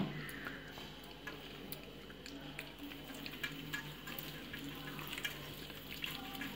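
A spoon stirring and scraping thick, wet spice paste around a stainless steel plate, made of curd, lemon juice and ground masala. It is faint and continuous, with scattered light clicks of the spoon against the plate.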